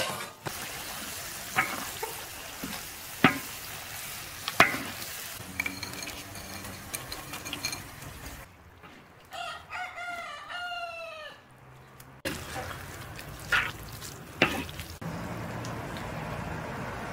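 Spinach sizzling in a wok over a wood fire, with a few sharp knocks of a wooden spoon against the pan. In the middle a rooster crows once, for about two seconds.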